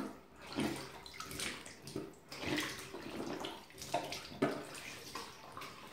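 Teeth being brushed with a toothbrush: wet scrubbing strokes, irregular, about one or two a second.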